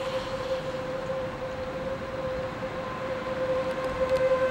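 Outdoor tornado warning siren sounding a steady, unwavering tone, growing louder near the end.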